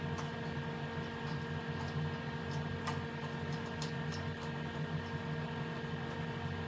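Steady machine hum with several fixed tones, and a few faint light clicks in the middle as the lathe's tool touch-off arm is handled.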